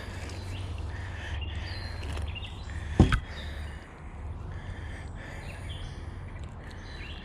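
Outdoor ambience of birds chirping over a steady low rumble, with one sharp knock about three seconds in.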